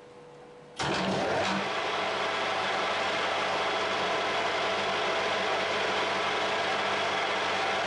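Metal lathe switched on about a second in, its motor and four-jaw chuck spinning up quickly and then running steadily with a hum of many even tones.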